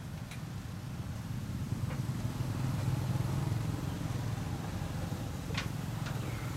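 Low engine rumble of a passing motor vehicle, swelling in the middle and easing off again. Two short high chirps near the end.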